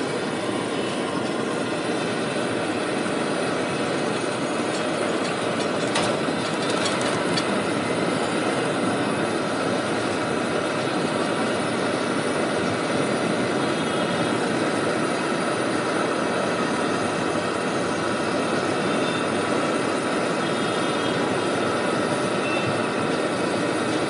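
Fuluri, gram-flour fritters, deep-frying in a kadai of bubbling oil, making a steady sizzle, with a few faint clicks about six to seven seconds in.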